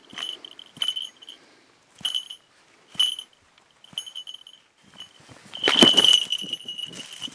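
A falconry bell worn by a goshawk jingling in short bursts roughly once a second as the hawk moves on its kill plucking fur, then a louder jangle of the bell with rustling near the end.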